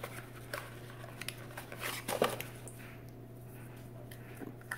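Paperboard carton being opened by hand and a jar slid out of it: soft rustling and small scattered clicks, with one louder scrape a little over two seconds in.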